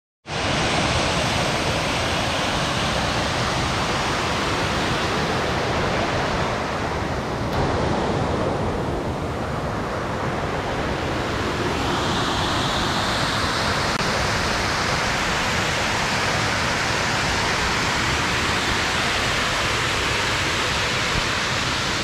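Waterfall pouring into a pool: a steady rush of falling water. About halfway through the tone shifts and a higher hiss comes in.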